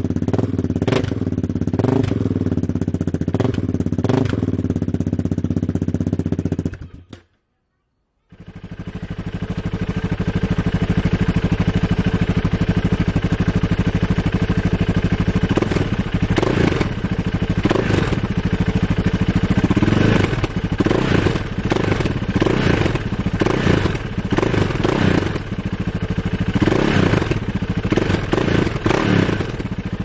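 KTM 640 LC4 single-cylinder four-stroke engine idling with a few short throttle blips, its silencer removed so it runs on the bare header pipe. The sound cuts out for about a second, then comes back with a Remus Freeride silencer fitted: a steady idle, then repeated throttle blips from about halfway on, coming faster near the end.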